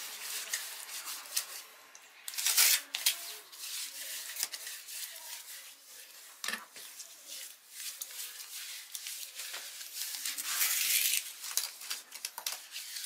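Irregular scraping and rubbing from hand work, with scattered light clicks and knocks; louder scraping spells come about two and a half seconds in and again from about ten to eleven and a half seconds.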